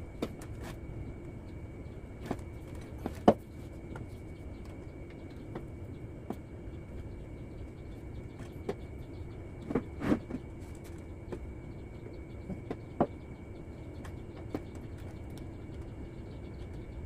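Scattered metal clinks and knocks as steel engine parts and a timing gear are handled and set against the engine's front gear plate, over a steady workshop hum with a faint high tone. The loudest knocks come about three seconds in and around ten seconds in.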